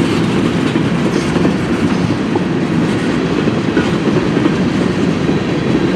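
Canadian National mixed freight train's cars rolling steadily past close by, a loud continuous rumble of steel wheels on the rails.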